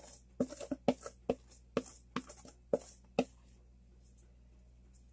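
Batter being knocked and scraped out of a plastic mixing bowl into a metal baking pan: sharp knocks about two a second, with scraping between them, stopping about three seconds in.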